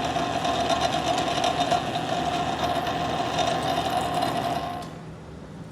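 South Bend 9-inch Model A bench lathe running under its motor drive, a steady mechanical whine with a clear single tone; the sound drops away about five seconds in as the machine is shut off.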